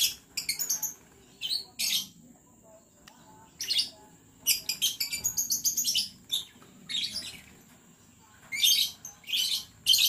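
A flock of lovebirds giving shrill, chattering calls in short bursts, several clusters of rapid calls with quieter gaps of about a second between them.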